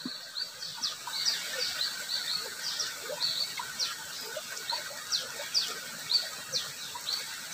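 Small birds chirping: many short, high, falling notes, several a second and overlapping, over a faint rush of running water.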